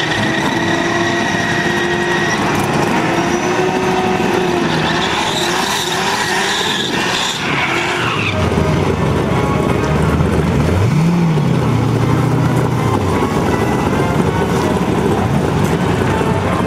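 SN95 Ford Mustang doing a burnout: the engine is held at high revs while the rear tyres spin and squeal through the middle part. Afterwards the engine drops to a low idle, with one short rev up and back down.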